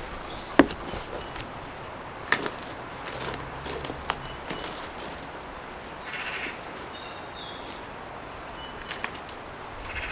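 Outdoor woodland ambience: scattered short bird chirps over a steady background, with a few sharp snaps or knocks spread through it.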